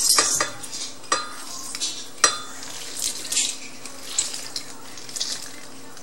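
Handheld lime squeezer worked over a stainless steel mixing bowl, pressing limes: a few sharp clacks as it presses and knocks against the bowl, with softer hissing, scraping noises between.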